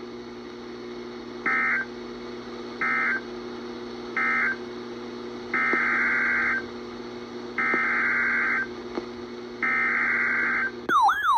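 EAS SAME digital data bursts, buzzy two-tone chirps: three short bursts (the end-of-message code closing the warning) followed by three longer bursts (the header of the next alert), over a steady low hum. Near the end a loud warbling, siren-like alert tone starts.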